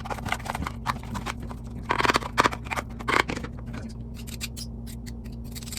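A spoon mixing butter and garlic in a bowl: repeated scraping and clicking of the spoon against the bowl, loudest about two to three seconds in.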